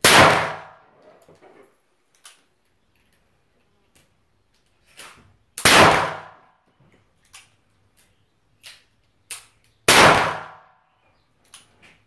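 Three shots from a Ruger Super Redhawk revolver in .44 Magnum, each a loud bang with a ringing tail off the wooden booth walls, about four to six seconds apart. Fainter clicks sound between the shots.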